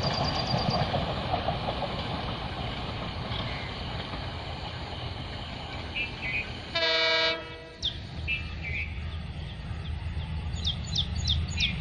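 Passing train rumbling, then an Indian Railways diesel locomotive horn sounds once, loud, for about a second. Afterwards the low rumble of another diesel locomotive coming up the line.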